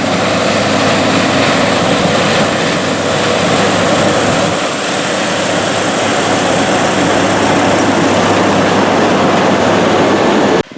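New Holland CR8090 combine running under load while harvesting corn: a loud, dense, steady machine noise with a faint high whine over it, cutting off abruptly near the end.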